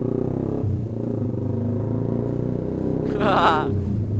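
Yamaha R15 V2's 150 cc single-cylinder engine running steadily through a Pro Liner racing exhaust, heard while riding. About three seconds in, a brief wavering voice-like call sounds over it.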